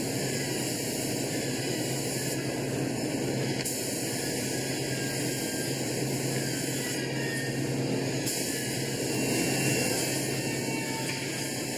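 Compressed-air spray gun hissing as lacquer is sprayed onto skateboard decks in a spray booth, over a steady rush of air and a low hum. The high hiss gets louder and softer several times.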